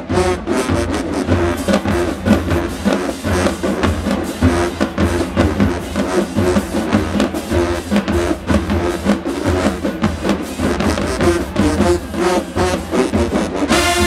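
Marching band playing in the stands: a fast, driving drumline beat with the brass section, sousaphones included, holding notes over it.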